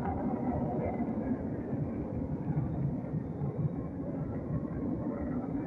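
Military fighter jet engines heard as a steady, low, rumbling noise that stays even throughout.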